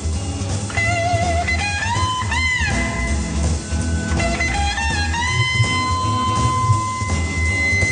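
Background music: electric guitar playing long held notes that bend up and down, over a steady bass and drum rhythm.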